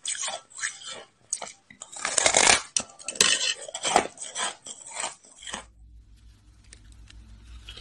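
Biting and chewing a mound of packed shaved ice: a dense run of crisp, crackling crunches, loudest two to three seconds in. About five seconds in the crunching stops, leaving a faint low hum with a few soft ticks.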